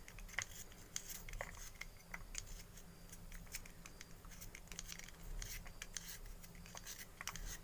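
A knife slicing fresh ginger root: a run of faint, irregular cutting taps and scrapes.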